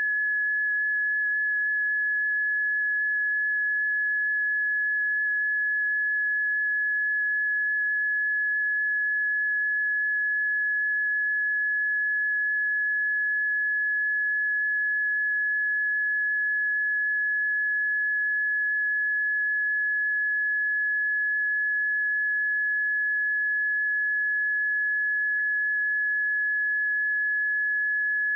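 Steady, high-pitched electronic tone of a seismic early-warning alert, holding one unchanging pitch throughout; on this alert an unchanged tone means no new earthquake or eruption is being signalled. A tiny blip interrupts it about 25 seconds in.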